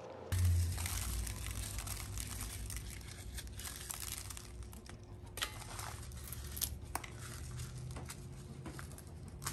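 Dried guajillo chiles being torn open and de-veined by hand: dry, papery crackling and crinkling of the brittle chile skins. A low steady rumble runs underneath.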